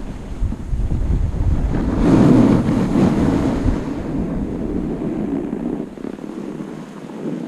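Wind rushing over the microphone while skiing, with the hiss of skis running over packed, groomed snow. It is loudest about two to three and a half seconds in, then eases off.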